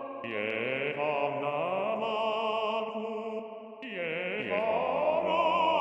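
Chant-like music: sustained voice-like tones with vibrato that slowly glide in pitch, dipping briefly about four seconds in.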